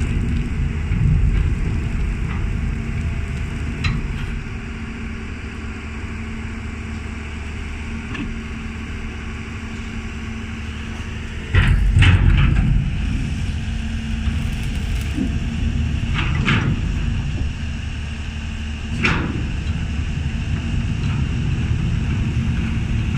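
Amphibious excavator's diesel engine running with a steady drone while its pontoon tracks crawl over a concrete bank, with occasional clanks and knocks from the track cleats. The loudest burst of knocks comes about halfway through, as the machine tips onto the concrete edge.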